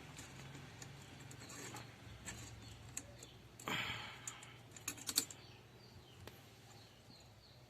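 Faint, scattered small clicks and taps of a hex (Allen) key and screws being worked loose on a car's steering wheel, with a short rasping scrape about four seconds in.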